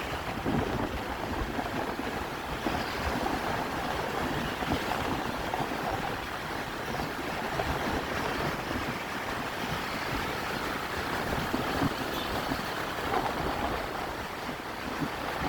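Steady road traffic noise, an even rush without any horn sounding.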